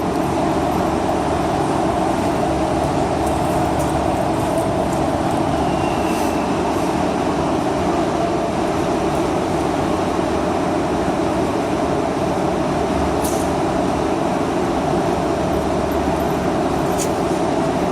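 A steady mechanical drone with a constant low hum, unchanging throughout, with a few faint clicks.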